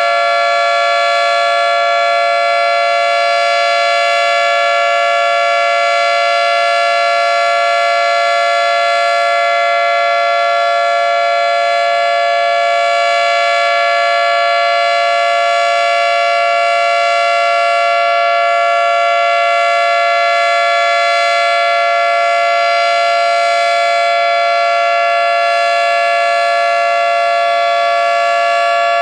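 Federal Signal 3T22 three-tone outdoor warning siren sounding a steady alert at full pitch: a loud, held chord of several tones that does not rise or fall.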